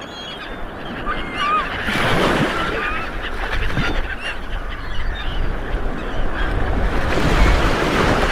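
Sea waves washing with wind, swelling louder about two seconds in and again near the end, under many short squeaky calls that rise and fall in pitch.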